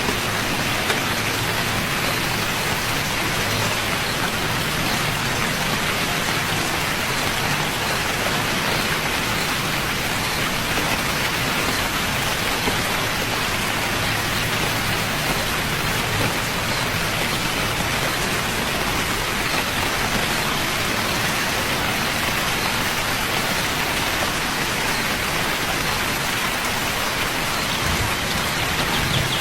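Steady rain falling, an even hiss of many drops hitting a surface.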